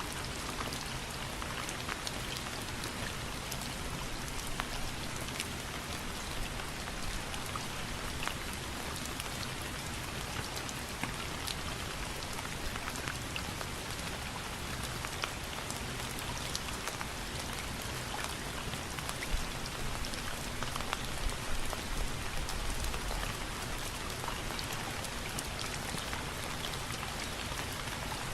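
Steady heavy rain: an even hiss of falling water dotted with the ticks of single drops striking a surface. About three-quarters of the way through it swells briefly, with a short low rumble.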